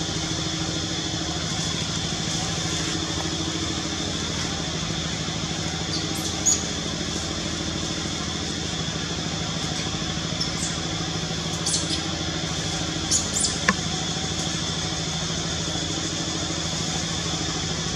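A steady droning hum, like an engine idling, runs throughout with no change in pitch. A few brief high clicks or chirps sound over it, about six seconds in and again around twelve to fourteen seconds in.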